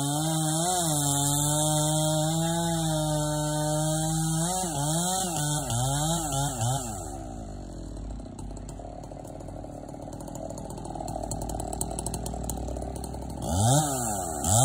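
Two-stroke chainsaw running at high revs, its throttle eased and opened several times, then dropping to a low idle about seven seconds in. Near the end it revs sharply back up.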